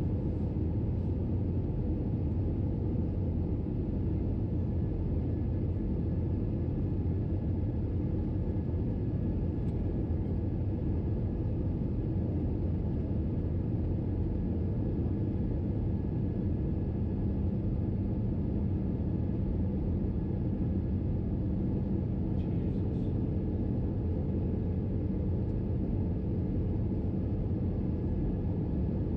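Steady cabin noise of an Airbus A321-211 in cruise: the even low rumble of airflow and its CFM56 engines, with a faint steady high whine running through it.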